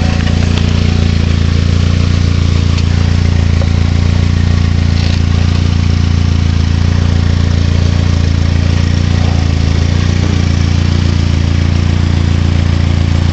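Ford Mustang SVO's turbocharged 2.3-litre four-cylinder engine running steadily at idle, heard loud and close.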